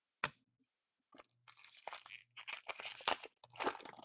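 A single sharp click, then a couple of seconds of crackling, crinkling plastic as trading-card packaging is handled.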